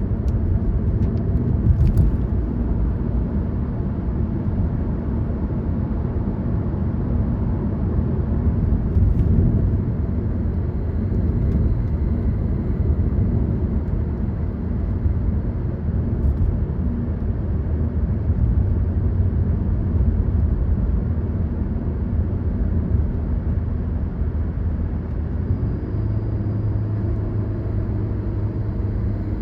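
Car driving: a steady low rumble of engine and tyre noise on the road, with a clearer, steady engine hum coming in about 26 seconds in.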